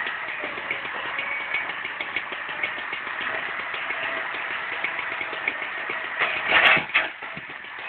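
Diesel engine of a logging skidder tractor running steadily with a fast clatter, with a brief louder surge of noise about six and a half seconds in.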